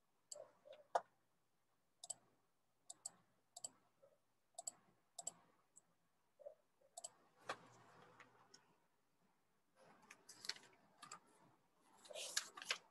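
Near silence broken by faint, irregular clicks and taps, more of them close together near the end.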